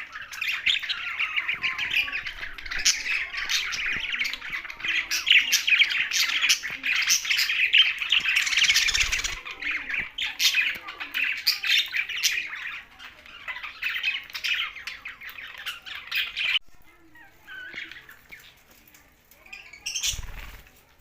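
Pet budgerigars and parrots chattering, with rapid chirps and squawks, as a dense, continuous chorus that breaks off suddenly about three-quarters of the way through, leaving only a few scattered calls.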